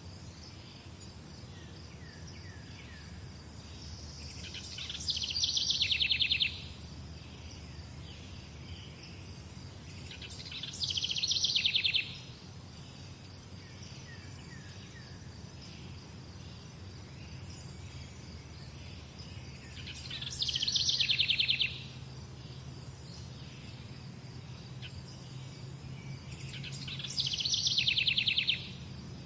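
Birds singing: a loud, rapid trilled phrase comes four times, about every six to nine seconds, with fainter chirps between. Under it runs a steady, high insect drone.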